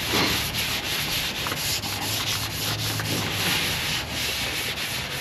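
A Scotch-Brite pad scrubbing the wet, painted steel floor of a square-body pickup's bed in quick repeated strokes. The old paint is being scuffed so the spray-in bedliner will stick.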